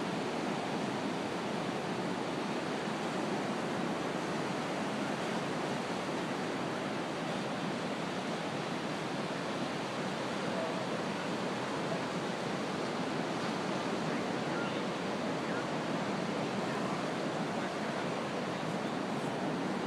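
Ocean surf washing steadily onto the beach and reef, an even rushing hiss with no breaks.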